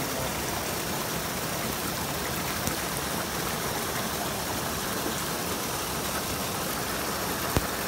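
Shallow stream water running over rocks, a steady rush, with one sharp click near the end.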